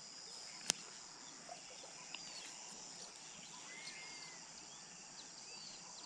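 Riverside wildlife chorus: a steady high insect drone with short chirping calls scattered throughout, and one sharp click under a second in.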